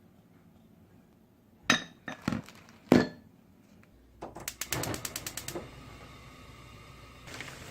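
Tableware and food-prep handling: three sharp clinks or knocks, then a quick run of even, ratchet-like clicks, and near the end a crinkling, rustling noise starting up.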